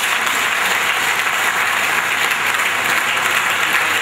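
An audience in a hall applauding: many people clapping steadily and densely.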